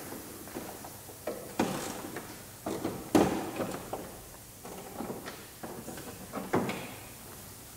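A series of irregular knocks and clunks, about eight, each dying away quickly, the loudest about three seconds in.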